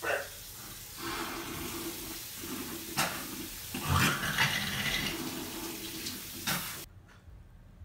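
Bathroom sink tap running water steadily into the basin while someone leans over it spitting out toothpaste, with a few sudden spits about three and four seconds in; the water cuts off sharply near the end.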